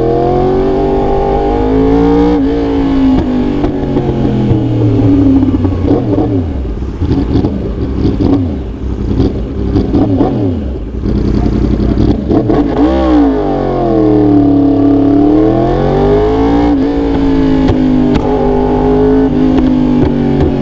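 A 2019 Yamaha R1's crossplane inline-four is revved repeatedly through an aftermarket exhaust, the engine note climbing and falling several times. Sharp pops and crackles come as the revs drop, in the middle and again later on.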